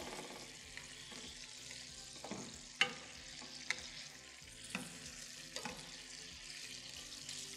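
Beef burger patties sizzling quietly in a frying pan with a splash of balsamic vinegar, while a wooden spatula knocks and scrapes against the pan about six times as they are turned.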